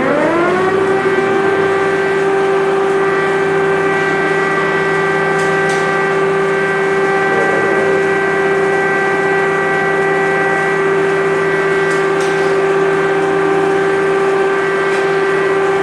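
Air-raid siren finishing its rise in pitch within the first second, then holding one steady wailing tone.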